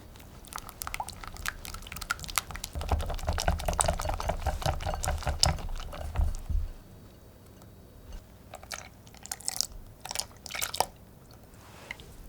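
Baked cheesecake filling being worked in a bowl: wet, sticky squelching with quick clicks of the utensil against the bowl. It is busiest and loudest for the first six seconds or so, then a few separate wet clicks and plops follow.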